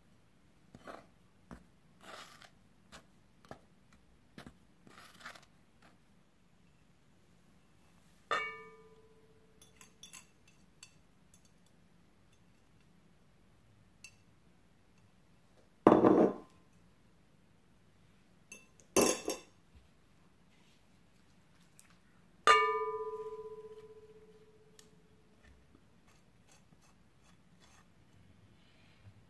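Kitchen utensils working in glass mixing bowls: light scraping and tapping of a spoon in flour at first. Later there are two short, louder clatters and two clear knocks on the glass bowl that ring out. The second, near the end, rings for about three seconds.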